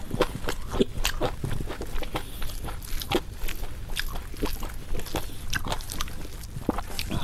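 Close-miked chewing and crunching of food in the mouth: irregular crisp crunches, about two a second.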